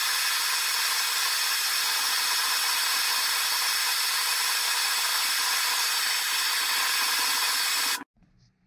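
Gas torch burning with a steady hiss, its blue flame shrinking heat-shrink tubing onto a metal shooting-stick leg. The hiss cuts off suddenly near the end.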